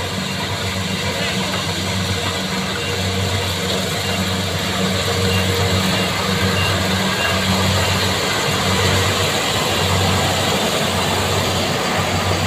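Kubota corn combine harvester's engine running steadily under load as the machine cuts through standing corn: a low, even hum over a broad mechanical noise.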